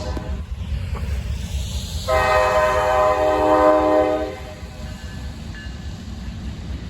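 Norfolk Southern freight train's GE C44-9W diesel locomotive sounding one long horn blast of about two seconds, starting about two seconds in, over the steady low rumble of the approaching train.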